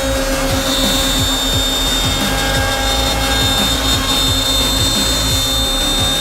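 Three-head CNC wood mortising machine running steadily, its spindles giving a continuous high whine over a low mechanical rumble.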